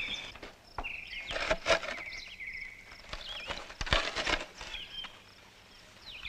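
Birds chirping and trilling in short repeated calls, over scattered footsteps and wooden knocks as a wooden chair is carried and set down on the ground.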